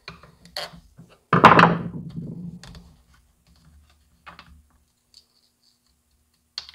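Hands handling a small chainsaw on a workbench: a solid thunk about a second and a half in that dies away, then scattered light clicks and taps on the plastic housing as it is fingered.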